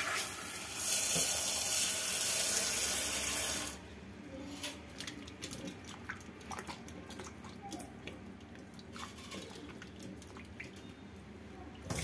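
Tap water running into a steel bowl of amla in a stainless steel sink, stopping about four seconds in. Then water sloshing with small clicks and knocks as the gooseberries are rubbed and swished by hand in the bowl.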